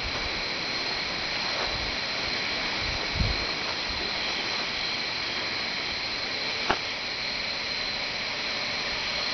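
Steady hiss with two constant high-pitched tones, broken by a low thump about three seconds in and a short click near seven seconds.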